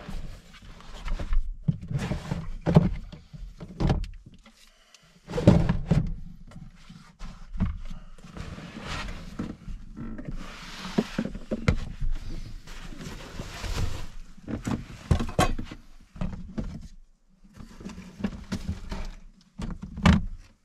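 Rummaging through a soft gear bag: rustling fabric, with irregular knocks and thunks as a Jetboil stove and its fuel canister are taken out and set down on a plastic cooler lid.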